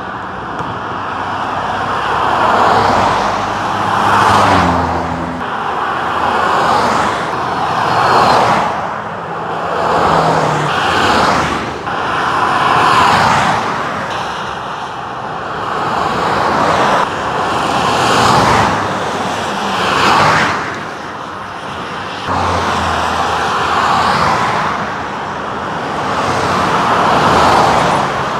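Cars passing one after another at highway speed, about eleven passes, their tyre and engine noise each swelling and fading over a couple of seconds. A few seconds in, one vehicle's lower engine note drops in pitch as it goes by.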